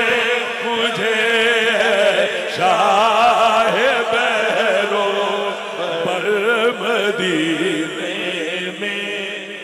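A man's voice singing a devotional Punjabi/Urdu kalam (na'at) without instruments, in long, wavering, drawn-out melodic lines through a microphone and PA, trailing off near the end.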